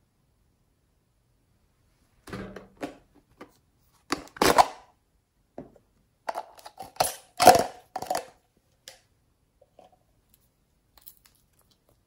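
A plastic jar with a metal clasp lid being handled and its clasps opened, giving a string of short clicks and knocks. They begin about two seconds in, and the loudest come about four and a half and seven and a half seconds in.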